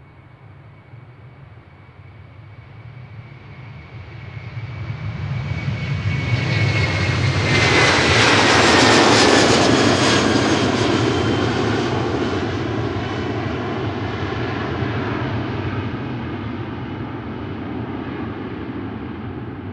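KLM Airbus A330-200 jet engines at takeoff thrust as the airliner climbs past. The roar builds to its loudest about eight to ten seconds in, with a high whine that falls in pitch as it goes by, then a long fading rumble.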